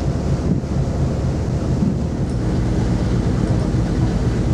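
Steady low rumble of the ferry MV Armorique under way, with the rush of its wake and wind on the microphone, heard from its open deck.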